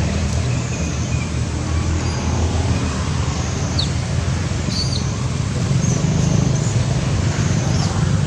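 Steady low hum of a motor vehicle engine running, with a couple of brief high chirps about four and five seconds in.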